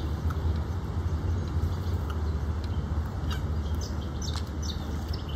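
Outdoor ambience of short, high bird chirps, several of them in the second half, over a steady low rumble.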